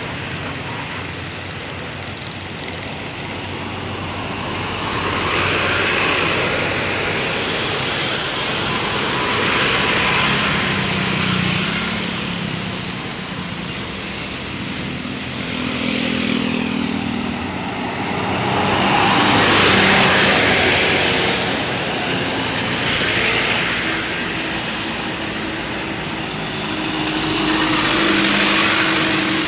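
Road traffic: several motor vehicles pass one after another over a steady engine hum, each one swelling and fading away.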